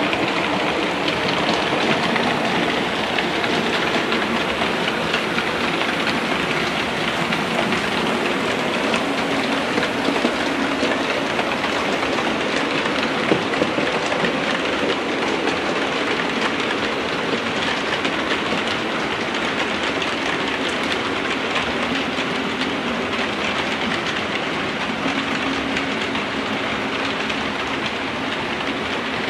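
Model railway trains running over the layout's track: a steady rolling rattle of small metal wheels on the rails and pointwork, with a faint hum underneath at times.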